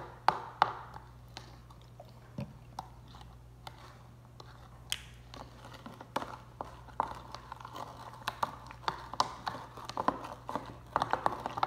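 Glue slime being mixed after activator was added: wet, sticky squelches and clicks, sparse at first and coming thick and fast in the second half.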